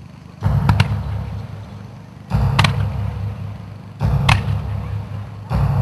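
Fireworks going off in four volleys about every one and a half to two seconds, each a sudden sharp crack with a deep rumbling boom that fades away.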